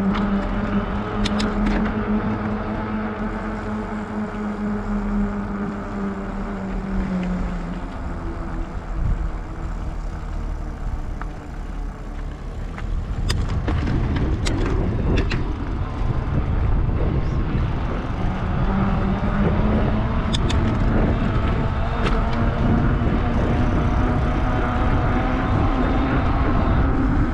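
Knobby fat-bike tyre humming on asphalt while riding: a steady tone that drops and fades about seven seconds in and comes back later, over low wind rumble on the microphone. A few light clicks.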